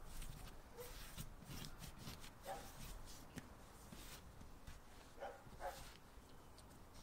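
Faint handling sounds of hands shaping soft sourdough bread dough on a floured wooden board and lifting it into a cloth towel, with a few short soft squeaks, two close together near the end.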